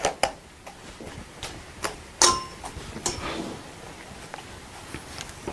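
Scattered light clicks and taps with faint rustling as a tail comb is worked through a mannequin head's synthetic hair, the sharpest click coming a little past two seconds in.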